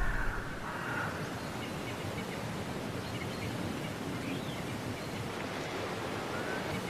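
Steady outdoor nature ambience: an even hiss with a few faint, high chirps.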